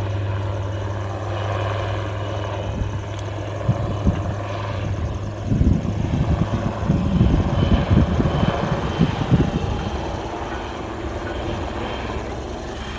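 Military helicopter flying at a distance: a steady low rotor drone, with a stretch of irregular low thumping through the middle.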